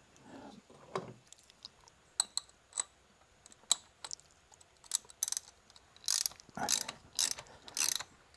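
Ratchet wrench clicking as a spark plug is turned and tightened with a spark plug socket deep in its well. Single sharp clicks come at first, then from about halfway the clicks come in dense, quick bursts of back-and-forth strokes.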